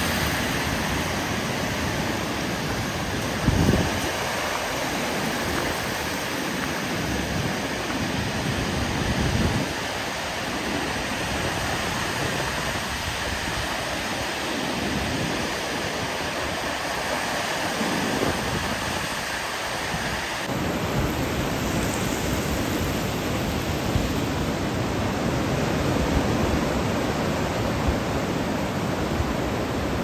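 Caspian Sea surf breaking and washing up a shallow beach in a steady rush, with gusts of wind buffeting the microphone in low rumbles, the strongest about three and a half seconds in.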